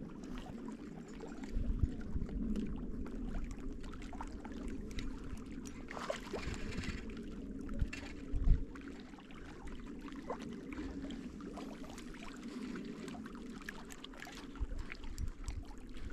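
Water lapping and splashing, with scattered dull knocks and a short, brighter splash about six seconds in.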